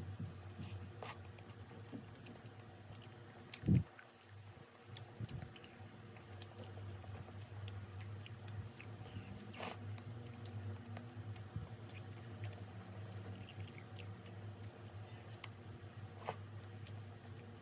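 Scattered light clicks and taps over a steady low hum, with one dull thump about four seconds in.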